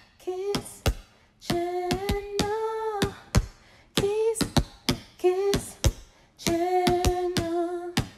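Outro jingle: a voice singing short and held notes over sharp clicking percussion, in a phrase that repeats about every two and a half seconds.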